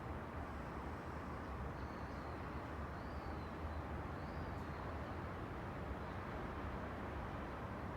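Steady outdoor rush of wind and distant road traffic. Three faint, high bird chirps come about two, three and four and a half seconds in.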